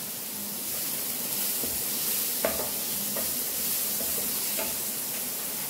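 Vegetables and chicken sizzling in hot oil while being stir-fried in a pan, with a few light knocks of the stirring utensil against the pan.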